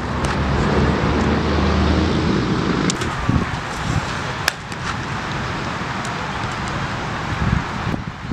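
Steady traffic noise with the low hum of a motor vehicle engine for the first three seconds or so, broken by a few sharp knocks, the loudest about four and a half seconds in.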